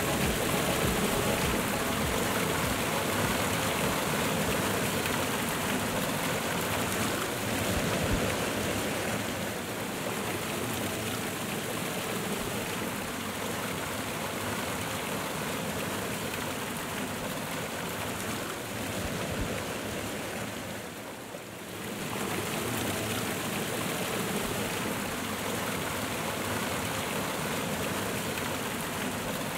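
Waterfall cascading over rocks, a steady rush of falling and churning water. About two-thirds of the way through it briefly drops quieter, then returns as a close rush of white water over stones.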